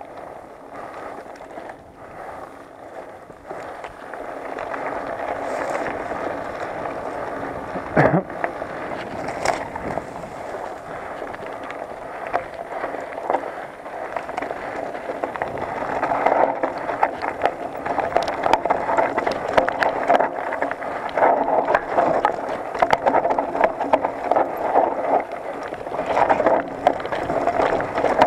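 Mountain bike rolling fast down a rocky dirt singletrack: tyres crunching over dirt and loose stones while the bike rattles, with a sharp knock about eight seconds in. The noise grows louder partway through as the bike picks up speed over rougher ground.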